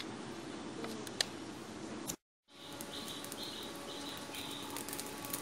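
Outdoor village ambience with a short dropout about two seconds in; after it, a bird chirps in a quick series of short calls over a faint steady hum.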